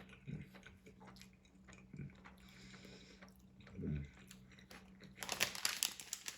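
A person chewing a sub sandwich close to the microphone, with soft mouth sounds and a few low thumps. Near the end, crinkling starts, most likely the sandwich wrapper being handled.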